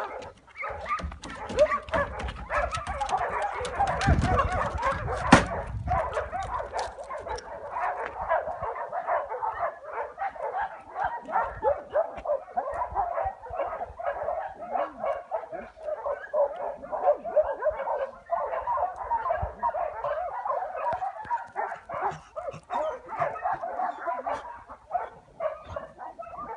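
A chorus of many dogs barking and yelping at once, overlapping without pause. A few sharp knocks come in the first several seconds.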